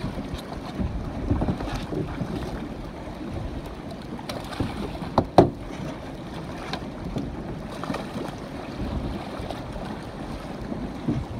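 Wind on the microphone and water splashing at the side of a boat as a hooked snook thrashes at the surface alongside, with a few short knocks; the loudest is a sharp knock about five seconds in.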